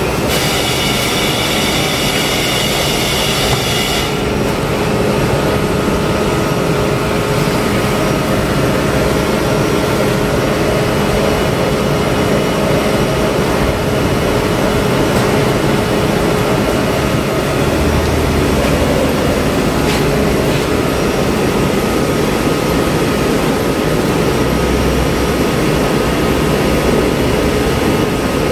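Car wash machinery running steadily: a loud, even mechanical noise with a steady whine. A higher hiss in the mix cuts off about four seconds in.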